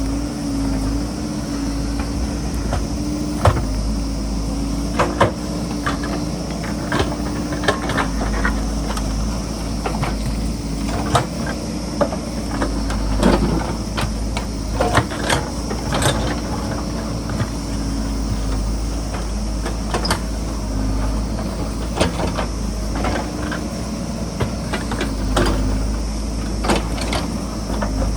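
JCB backhoe loader's diesel engine running steadily under load, with frequent sharp knocks and clanks at irregular intervals.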